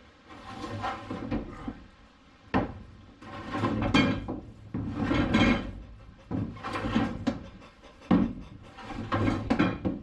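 Heavy 00-gauge battery cable being pulled and dragged across a car's sound-deadened floor pan: repeated bursts of rubbing and scraping, with two sharp knocks.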